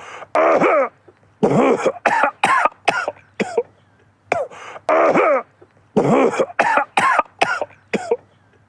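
A man coughing over and over, in runs of several coughs in quick succession separated by brief pauses.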